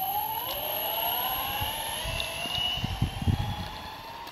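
Twin belt-driven brushless motors (Turnigy Aerodrive SK3 4250, 350 kV) of an electric Ripstik whining as the board accelerates, the pitch rising slowly, over a low rumble of the wheels on asphalt. It grows fainter towards the end as the board moves away.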